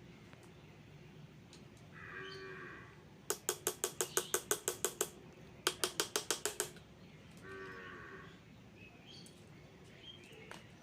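Rapid metal-on-metal tapping: a screwdriver struck with pliers to loosen a stuck, tight part of a table fan. There is a quick run of about fifteen taps, a short pause, then about ten more. A short wavering pitched call sounds twice, once before the tapping and once after it.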